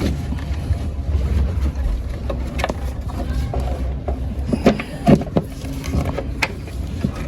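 Steady low rumble of a vehicle engine running, with a few short knocks and clicks over it.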